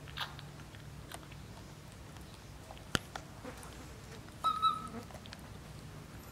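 Baby macaque giving one short, high-pitched squeal about two-thirds of the way in, with a sharp click just before the middle and a few fainter clicks, over a low steady hum.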